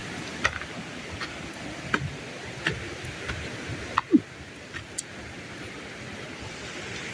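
Footsteps on a dirt jungle trail, about one step every three-quarters of a second, over a steady outdoor hiss. A short low falling note sounds about four seconds in.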